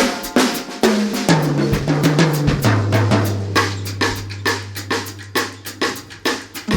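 Background music: a drum beat with a bass line that steps down in pitch and then holds one low note.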